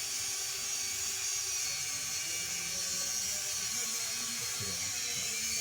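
Steady whir of the ventilation blowers in a closed-house broiler barn, running hard.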